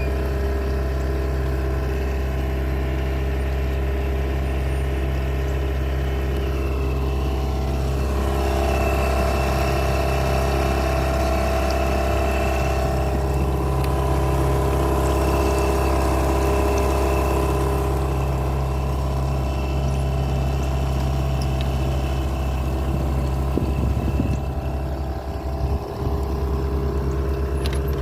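An engine running steadily at constant speed, with an even low hum. Near the end its sound wavers and turns choppy for a couple of seconds.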